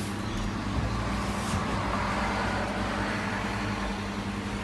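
Steady hum of a road vehicle, with a swell of noise about midway through that fades again.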